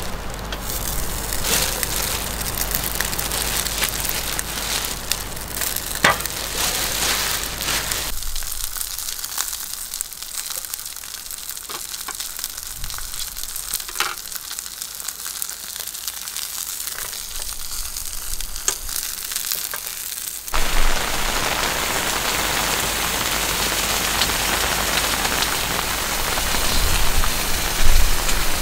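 Heavy rain falling, a dense hiss with scattered drop ticks. Its sound shifts abruptly twice, about eight and twenty seconds in, getting duller and then brighter and louder again.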